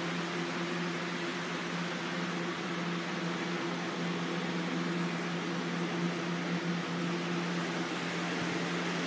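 A running electric fan: a steady low motor hum over an even rushing-air hiss, unchanging throughout.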